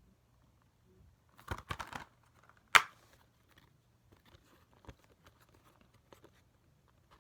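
Plastic Blu-ray cases and slipcovers being handled: a burst of rustling and scraping about one and a half seconds in, a single sharp plastic click a second later, then scattered light taps and clicks.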